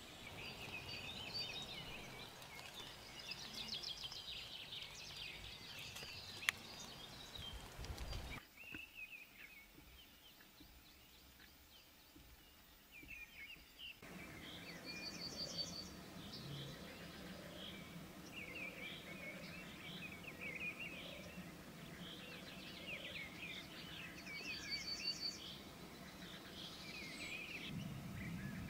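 Songbirds singing in woodland: many short chirps and repeated high trills from several birds. There is one sharp click about six seconds in, and the birdsong drops away to quiet for several seconds in the middle before resuming.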